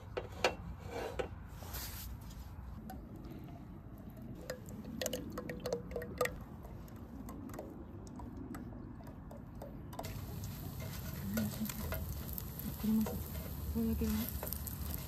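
Light clinks and taps on a metal griddle pan as bread slices are set out and handled, followed by a faint, steady sizzle of bread toasting in garlic butter on the hot pan.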